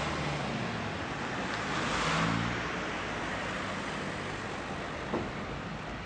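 A lorry running, heard from inside its cargo trailer: a steady rumble with road or engine noise, and a single knock about five seconds in.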